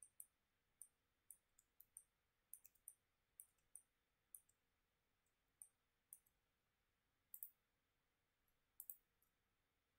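Faint computer mouse clicks, irregularly spaced, a couple of them in quick double clicks near the end, as edges are picked and dimensions placed in a CAD program.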